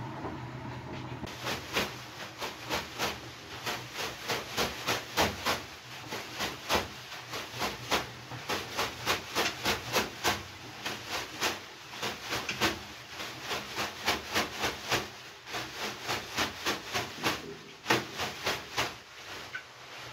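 A leafy banya broom (venik) beaten again and again against a person's body on the steam-room bench: a quick series of swishing slaps, about two or three a second, with short pauses between runs.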